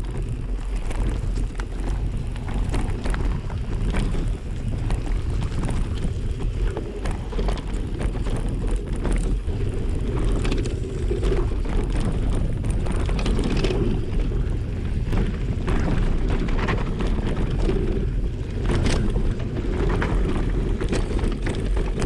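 A mountain bike rolling down a rough dirt and stone trail: the tyres crunch over gravel and rocks, with scattered clicks and rattles from the bike, under a steady low rumble of wind and vibration on a handlebar-mounted camera microphone.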